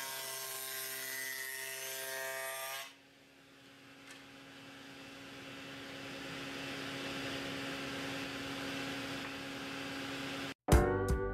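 Table saw with a dado blade running, cutting a rabbet in a pine cleat, with a steady whine over the cutting noise; about three seconds in the cutting sound stops suddenly, leaving a much quieter steady hum. Near the end, plucked guitar music starts.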